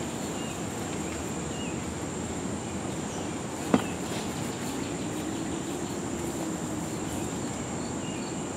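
Steady high-pitched insect buzz over a steady outdoor hiss, with one sharp knock a little before halfway.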